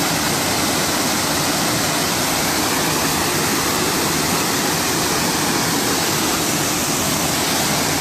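Waterfall pouring over rock into a foaming plunge pool: a loud, steady rush of falling water.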